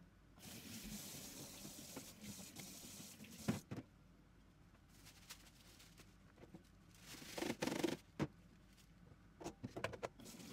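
Water running from a kitchen tap into a stainless steel sink for about three seconds, then a few knocks and handling sounds at the sink, the loudest a cluster about seven to eight seconds in.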